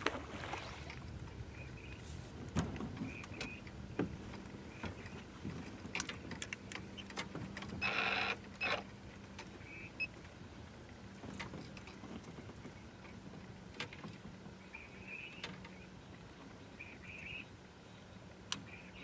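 Fishing rods and reels being handled and set out on a boat: scattered clicks and knocks, and a brief rasping burst about eight seconds in. A low steady hum comes in a few seconds in and runs on underneath.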